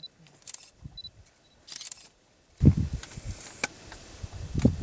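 Camera autofocus beeps and shutter clicks in the field. About halfway through, a louder low rumble sets in under the clicks.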